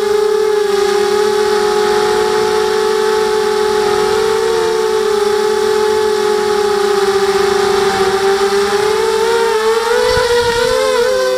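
FPV quadcopter's motors and propellers whining steadily, heard from its onboard camera. About ten seconds in the drone hits the grass: a brief low thud as the whine's pitch wobbles, then it settles again.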